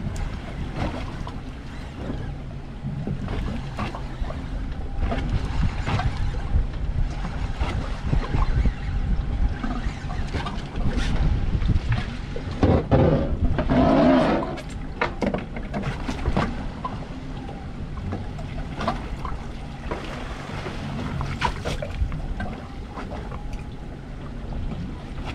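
Wind buffeting the microphone and water slapping against the hull of a drifting boat, with scattered clicks and knocks from a fishing reel being cranked as a hooked fish is brought up. There is a louder stretch about halfway through.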